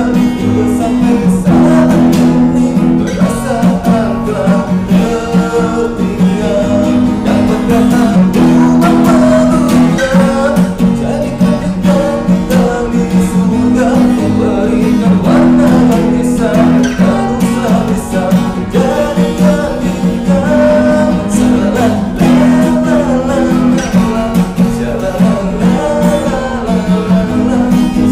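A man singing a slow melody over strummed acoustic guitar accompaniment. The guitar chords change every second or two beneath the voice.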